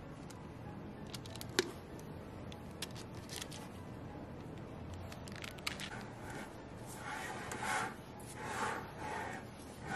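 Thick cake batter being scraped with a silicone spatula into a parchment-lined springform pan, with small clicks and a sharp tap about one and a half seconds in. From about seven seconds in, the spatula scrapes across the batter in three strokes, spreading it flat.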